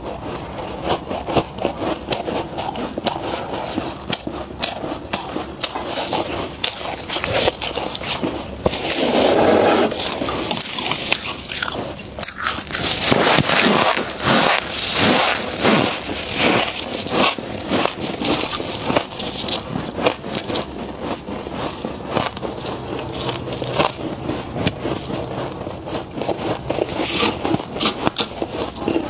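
Gloved hands scraping loose frost from the walls of a chest freezer and a person chewing mouthfuls of freezer frost: a dense run of crisp crackles and crunches, loudest about halfway through.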